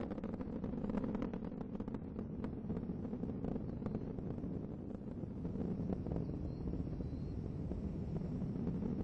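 Space Shuttle Discovery's solid rocket boosters and main engines during ascent: a steady low rumble with a fine crackle.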